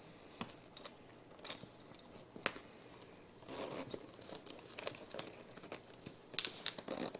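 Hands working the fasteners of a fabric busy board: three sharp clicks about a second apart, then rustling and scraping of the cloth and flaps from about halfway, busier near the end.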